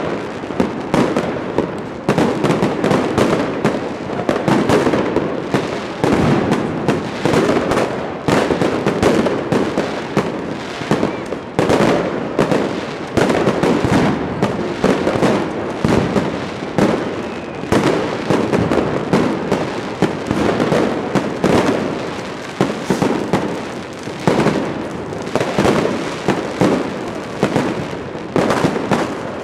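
Dense, continuous barrage of fireworks: many overlapping bangs and crackles from aerial shells bursting, with no pause.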